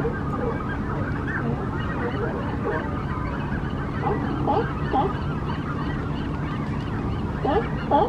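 Repeated honking animal calls: a few spaced calls in the middle, then a quicker run of them near the end, over a steady low hum.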